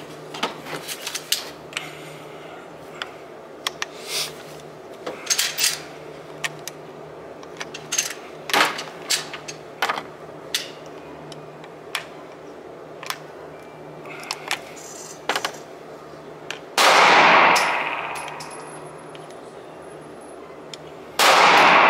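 9mm cartridges being pressed one by one into a Glock 17 magazine, a sharp click as each round seats, with the odd clink of brass on the metal shelf. Two loud gunshots ring out in the range, one about 17 seconds in with a fading echo and another near the end.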